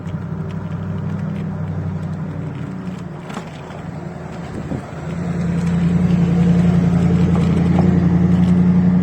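Steady low hum of a motor vehicle's engine on the street, growing louder about five seconds in as it comes closer.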